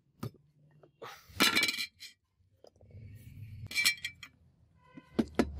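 Rusty hand-forged butcher's cleaver blade and its loose handle piece clinking and clattering against each other and a concrete floor as they are handled and set down. There are a few short metallic clinks, the loudest a clatter about a second and a half in, and a quick run of ringing knocks near the end.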